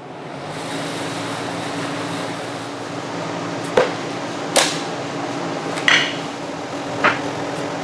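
A steady machine hum swells in during the first second and holds, while four sharp knocks on steel, like hammer taps on pipe, ring out in the second half.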